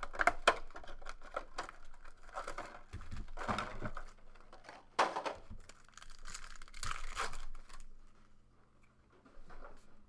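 Plastic shrink wrap being torn off a sealed box of trading-card packs and crumpled, followed by handling of the packs and cards. The tearing and crinkling comes in several bursts and dies down near the end.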